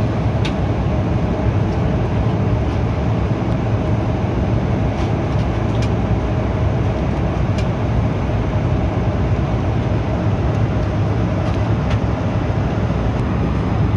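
Steady cabin noise of an Embraer 175 airliner in flight: the drone of its GE CF34 turbofans and the rush of air past the fuselage, heard from a window seat beside the engine, with a steady hum running through it.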